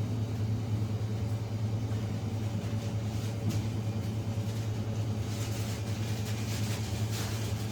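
A steady low rumble, like a vehicle cabin on the move, with faint rushing hiss rising and falling over it.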